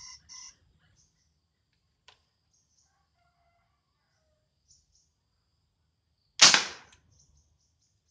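Homemade PVC gas-fuelled combustion gun firing: a single sharp bang as the gas-air mix in the chamber ignites, about six and a half seconds in, dying away over about half a second.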